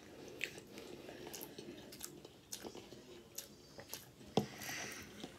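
Close-up chewing and mouth sounds of eating cheeseburgers and fries, with scattered small clicks and smacks and one sharper click about four and a half seconds in.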